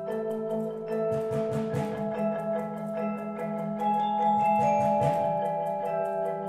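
Percussion ensemble playing on mallet keyboard instruments: long ringing chords held over quick repeated low mallet strokes, with a new higher note joining about four seconds in.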